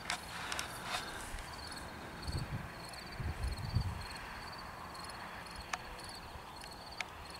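Outdoor ambience of insects chirping in a high, steady pulsed rhythm about twice a second, with a few faint clicks and low thumps.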